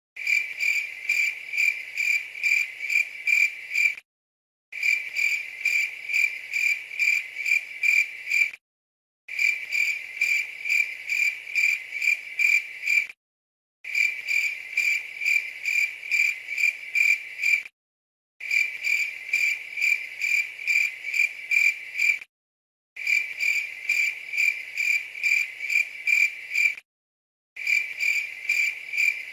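Crickets chirping: a stock crickets sound effect, the 'awkward silence' meme cue. It is a steady, high chirp pulsing about two to three times a second. It drops to dead silence for about half a second every four and a half seconds or so, where the short recording loops.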